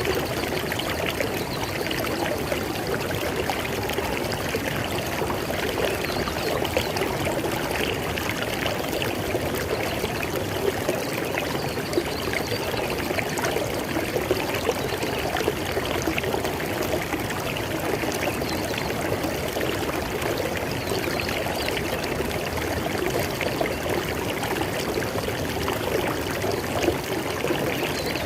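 River water flowing over rocks: a steady rush with dense small splashes and trickles.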